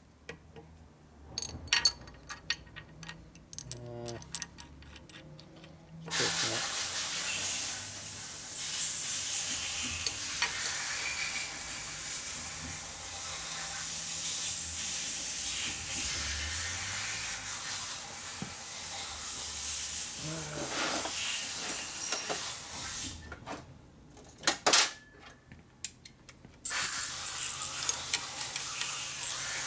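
Metal clinks and taps of a wrench and bolt-on gear puller being fitted to an engine sprocket, a handful in the first few seconds and a couple of sharp ones near the end. A steady hiss starts suddenly about six seconds in, drops out for a few seconds near the end, and comes back.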